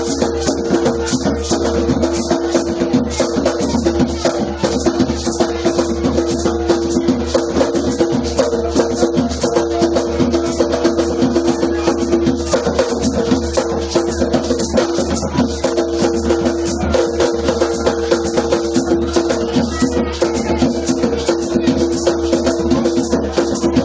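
Garifuna dance music: drums and shaken rattles keep a fast, steady beat over sustained tones.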